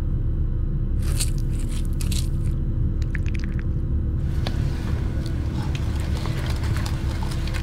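Hands squishing and mashing boiled potatoes in a metal bowl, then working food in a pot: wet crunching and scraping that comes in irregular bunches. The food sounds lie over a steady low rumble and are heard through a hall's loudspeakers.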